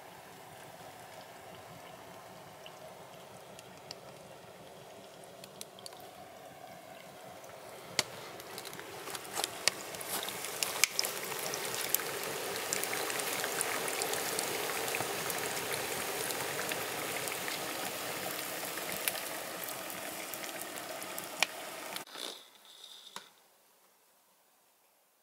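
Flat pan of liquid boiling hard on a wood-fired barrel stove: a steady bubbling hiss with sharp crackles from the burning wood. It grows louder about a third of the way in, then cuts off about three seconds before the end, leaving near silence.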